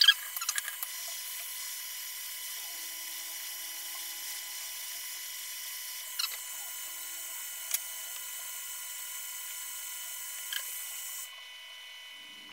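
Hot air rework station blowing onto a stacked iPhone XS logic board to reflow the solder balls between its layers: a steady high hiss with a thin whine, and a few light clicks. The airflow cuts off about eleven seconds in.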